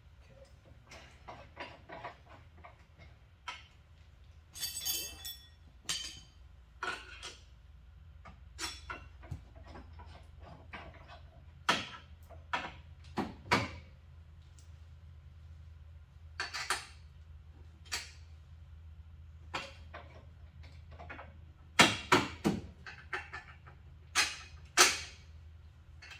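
Hand tools clinking and knocking on metal while sidecar mounting hardware is worked on: scattered sharp clinks and knocks, the loudest about halfway through and again near the end, over a steady low hum.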